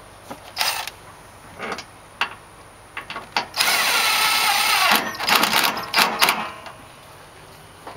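Cordless impact driver driving a long 10 mm bolt into the plastic condenser fan shroud: a steady spin for about a second and a half, then several short bursts of hammering as the bolt tightens. A few light knocks of the shroud being handled come before it.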